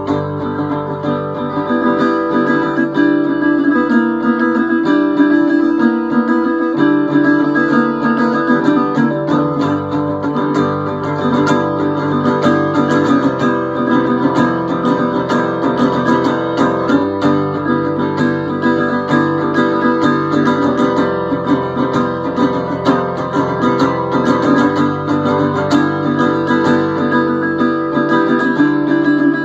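Background music: acoustic guitar playing steadily, picked and strummed.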